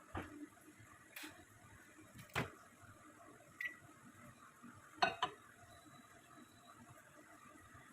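Scattered clinks and knocks of kitchen utensils and dishes being handled, about six separate strikes spread out, with a short high beep about halfway through.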